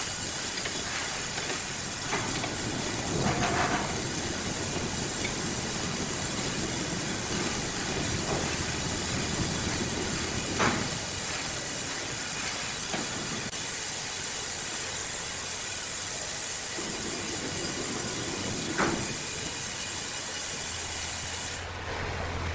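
Sawmill machinery running with a steady, loud hiss and a few scattered knocks. The hiss cuts off suddenly near the end.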